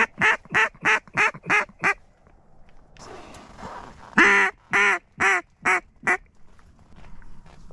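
Duck call blown in mallard quacks: a descending run of about seven quacks that trail off, then after a short pause a second run of five. This is a hen-mallard-style calling sequence used to draw ducks in.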